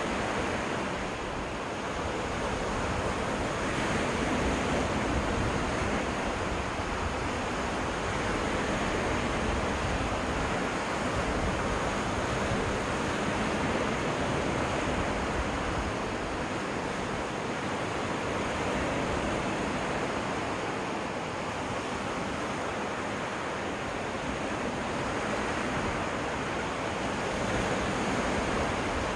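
Waves washing onto a freshwater lake beach in a steady rush that slowly swells and eases.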